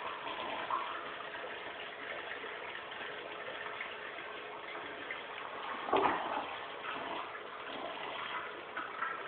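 Crane Plumbing Galaxy toilet flushing: water rushing steadily through the bowl, with a brief louder gush about six seconds in.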